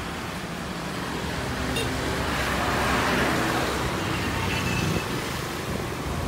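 Road traffic: a steady engine rumble, with a vehicle passing and swelling louder about two to three seconds in.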